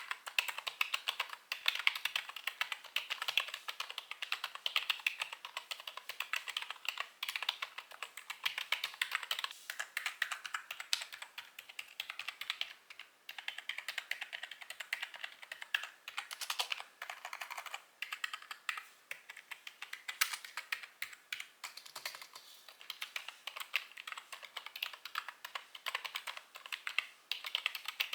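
Fast, continuous typing on a Langtu L1 membrane gaming keyboard: dense, rapid key clacks with a brief pause about halfway through.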